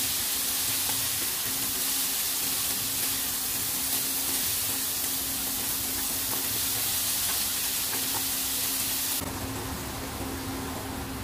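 Broccoli sizzling as it is stir-fried in a nonstick pan, stirred and tossed with a wooden spatula, over a faint steady hum. About nine seconds in the sizzle suddenly drops away, leaving a lower rumble.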